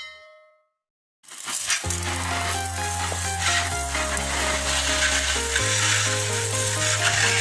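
Portable pressure washer spraying a jet of water with a loud, steady hiss that starts suddenly about a second in, with background music underneath.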